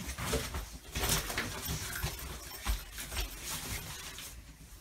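Clothes and a fabric bag rustling as clothes are pulled off wardrobe shelves and stuffed into the bag, with irregular short rustles and a few soft knocks.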